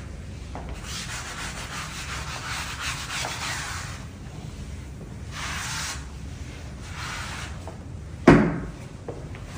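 Floor being scrubbed during a machine-and-chemical wash: rasping scrubbing in two stretches over a steady low hum, with one loud knock about eight seconds in.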